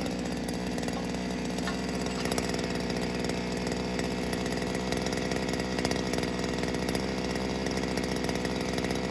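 Small gas engine of a handheld post-driving pile driver running steadily at speed, with a buzz like a chainsaw.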